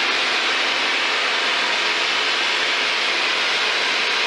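Piper Tomahawk's four-cylinder Lycoming engine at full power on the takeoff roll, heard through the aircraft intercom as a steady hiss with faint engine tones beneath.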